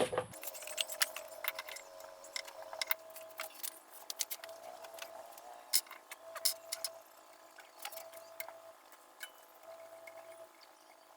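Irregular small clicks and light metallic clinks from airgun parts and tools being handled, with a faint hum coming and going.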